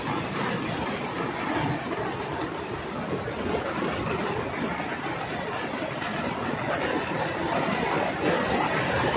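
Heavy rain beating on the polycarbonate roof and walls of a greenhouse, heard from inside as a steady, dense patter of drops.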